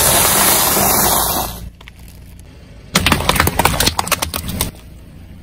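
Car tyre rolling onto and squashing bundles of coloured strips, a dense continuous crackle for about the first second and a half. About three seconds in, a rapid run of sharp pops and splashes for about a second and a half as the tyre rolls over water balloons and bursts them.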